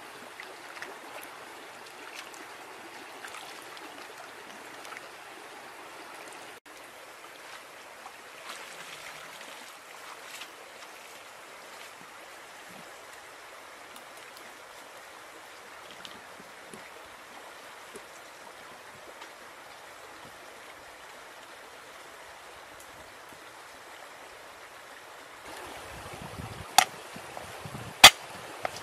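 A stream running steadily, with trickling and gurgling water. Near the end the sound changes and two sharp knocks come about a second apart, the second the louder.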